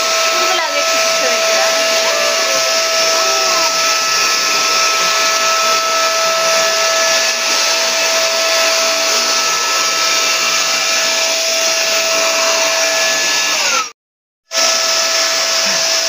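Kent Vortex wet and dry vacuum cleaner running at full suction through its extension tube and nozzle: a steady rushing of air with a steady motor whine. It cuts out for about half a second near the end, then carries on.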